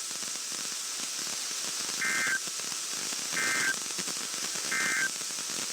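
NOAA Weather Radio SAME end-of-message data bursts over radio hiss: three short two-tone bursts about 1.4 seconds apart, closing the weekly test message.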